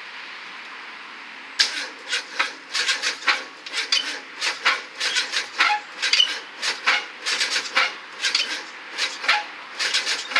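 Quick, irregular rasping scrapes, about two to three a second, starting about a second and a half in, from hand work inside a car's engine bay.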